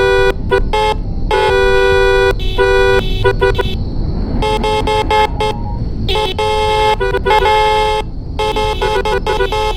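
Car horns honking back and forth in a rapid string of short taps and longer held blasts, the longest lasting about two seconds, with a constant low rumble underneath.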